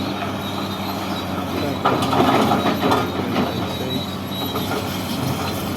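Cat 336DL hydraulic excavator running steadily, with louder metallic squealing and clanking starting about two seconds in.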